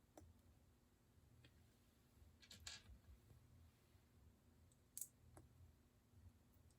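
Faint clicks of small plastic Lego pieces being handled and pressed into place, a few scattered taps with the sharpest about five seconds in, over near silence.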